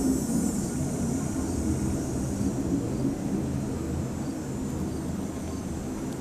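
Low rumble of a distant airshow aircraft passing overhead, slowly fading.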